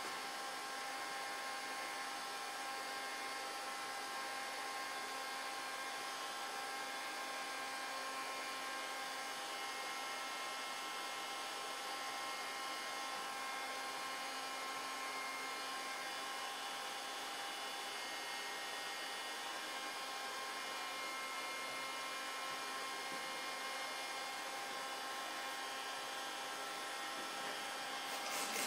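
Steady electrical hum, several fixed tones over a faint hiss. Near the end, a hand spray bottle starts squirting in quick, even pumps.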